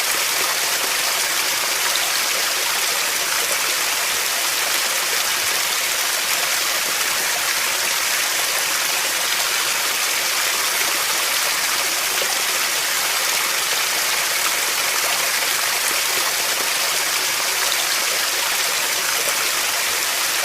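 Steady rushing water of a stream or waterfall, an even hiss-like rush with no breaks or changes.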